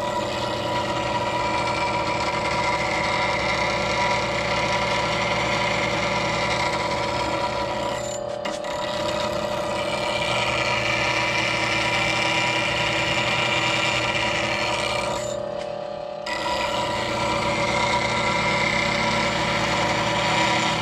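Bench grinder with a fine wheel, the motor running steadily while a bowl gouge in a pivoting jig is ground to a modified grind. The grinding hiss of steel on the wheel comes in three long passes, broken by two brief pauses about 8 and 16 seconds in.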